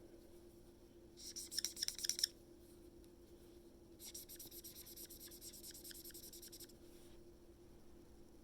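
Coloring on paper: quick back-and-forth scribbling strokes, in a short burst about a second in and a longer run from about four to seven seconds in, over a faint steady hum.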